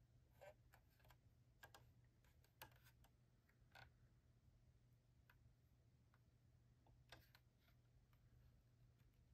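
Near silence, with faint scattered clicks and taps from a diecast model car and its packaging being handled, several close together in the first four seconds and one more a little after seven seconds.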